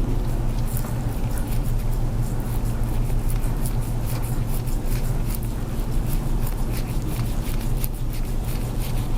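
A scraping tool drawn again and again over the skin of a back, many short, soft strokes, over a steady low hum.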